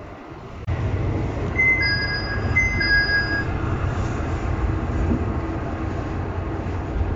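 Kantō Railway KiHa 2000-series diesel railcar, heard from inside, running with a steady low engine rumble while standing at the station. A high two-note electronic chime sounds twice in the first half.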